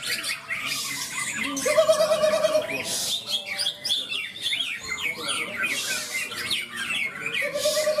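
Many caged green leafbirds (cucak ijo) singing at once in a contest: a dense, overlapping chorus of fast chirps, squawks and whistled phrases, with a lower held warbling note about two seconds in and again near the end.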